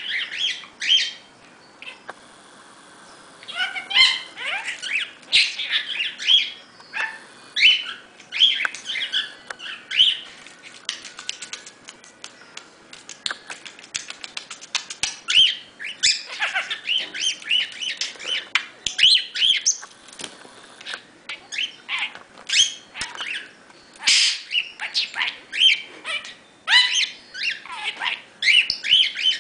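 Pet budgerigar warbling and chattering: a fast, continuous jumble of short chirps, clicks and squawks, with a brief pause about two seconds in.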